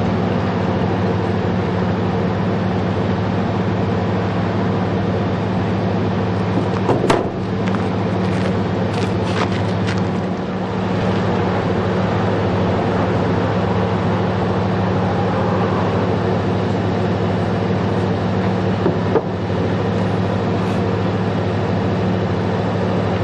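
An engine running steadily at a constant pitch, with a few sharp clicks and knocks about seven seconds in, again around nine to ten seconds, and once more near nineteen seconds.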